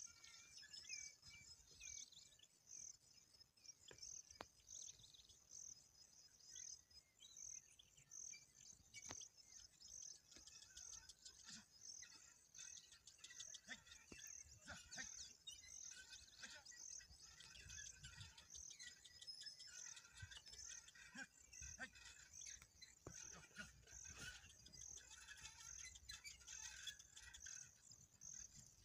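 Faint rural field ambience: a high insect chirp repeating evenly a little more than once a second, with scattered bird chirps.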